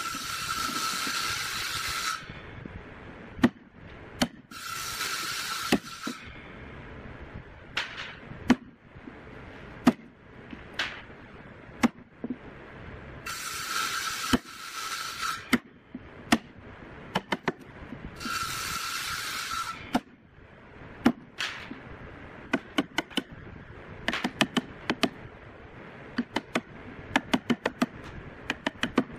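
Hand wood chisel cutting a hinge recess into a wooden board: sharp knocks and scrapes, with quick runs of taps near the end. Four times a loud hiss with a steady whine cuts in, each a couple of seconds long.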